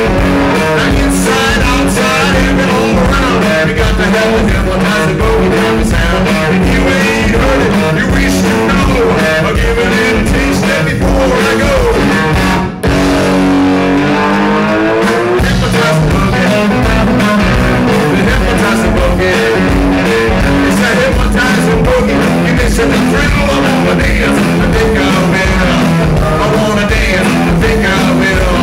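Live blues-rock band playing an instrumental stretch of a boogie: electric guitar leading over a steady bass and drum beat, with a brief drop in the sound about halfway through.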